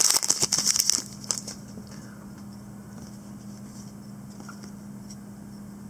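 Foil trading-card pack wrapper crinkling and tearing open, ending about a second in. After that there is only a faint steady hum and a few light clicks of cards being handled.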